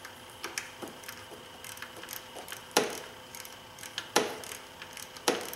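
Hand ratchet clicking in short runs as the bolt holding the intake camshaft position sensor is run down snug, with three louder clicks about three, four and five seconds in.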